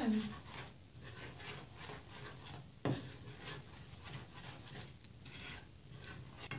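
Fingers stirring flour into a wet yeast mixture in an enamel bowl, making soft, repeated scratchy rubbing strokes, with one louder knock about three seconds in.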